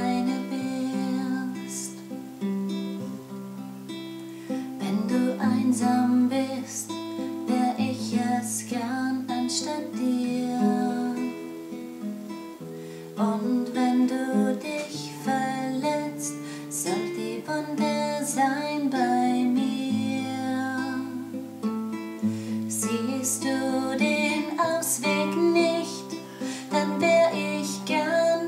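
Nylon-string classical guitar played by hand: chords plucked and strummed over a bass line whose notes change every second or two.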